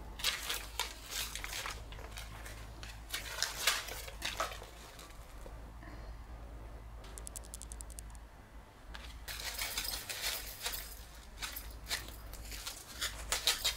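Plastic packaging crinkling in repeated bursts as it is handled, with a brief rapid rattle about seven seconds in.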